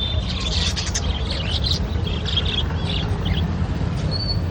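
Many small caged birds chirping rapidly and overlapping, short high chirps scattered throughout, over a steady low rumble.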